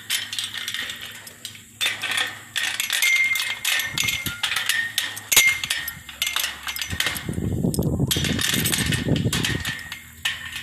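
Metal clinking and rattling: a run of quick clinks with a few short ringing tones. A stretch of lower, rougher handling noise comes about seven seconds in.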